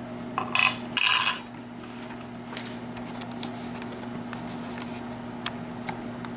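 Small metal lock-cylinder pins clinking and clattering on a hard surface, loudest in a short metallic clatter about a second in, followed by a few faint ticks.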